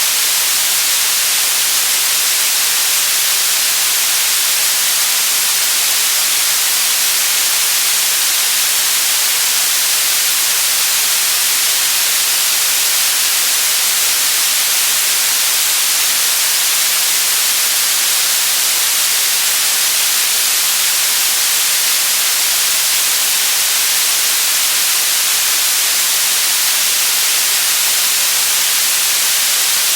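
Steady white noise: a loud, even, unchanging hiss.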